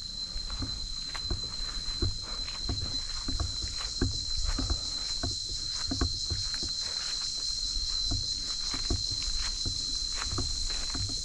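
Footsteps of a person walking a forest dirt path, about two steps a second, over a steady high-pitched drone of insects.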